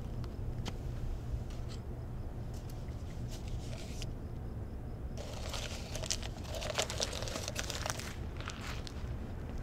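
Paper cup crinkling and crackling as hands squeeze and crush it, for about three seconds starting about five seconds in, with a few lighter handling clicks before, over a low steady hum.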